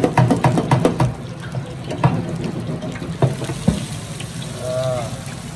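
Whole garlic bulbs deep-frying in a wire basket in a commercial fryer, the hot oil bubbling and crackling fast and dense. About a second in it drops to a quieter hiss, with a few single knocks as the basket comes out of the oil.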